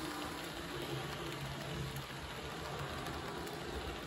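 Rivarossi HO-scale model train, an E646 electric locomotive with passenger coaches, running on the track: a steady rattle of wheels on rails with a faint low hum.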